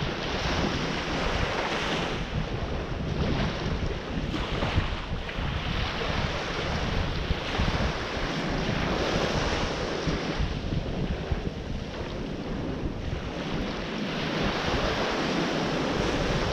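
Ocean surf rushing steadily, swelling and easing in slow waves, with wind buffeting the microphone.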